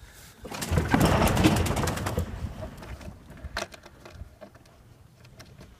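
Diatomaceous earth being shaken and spread in a wooden chicken nesting box: a loud rustling, scraping burst lasting about two seconds, then a sharp click and a few faint ticks.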